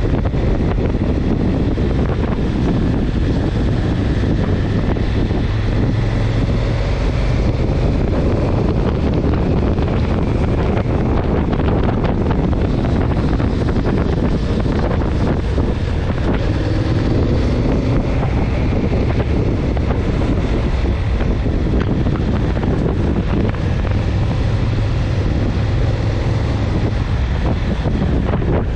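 Steady, heavy wind noise buffeting the microphone of a handlebar-mounted camera while riding at speed, with a faint engine hum underneath.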